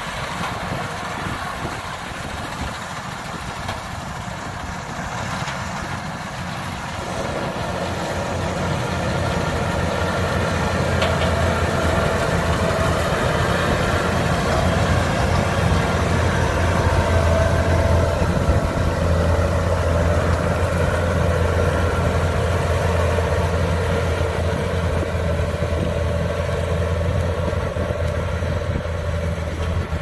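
Kubota DC-105X combine harvester's diesel engine and machinery running as it cuts rice, a steady low hum that grows louder as the machine comes close, then eases off slightly near the end.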